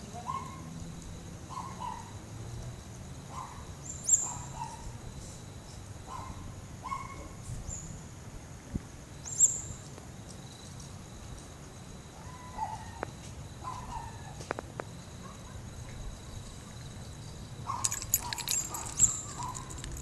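Outdoor dusk ambience of calling birds and insects. A short mid-pitched call repeats every second or so over a steady high drone, with two sharp, loud high chirps and a flurry of clicks and chirps near the end.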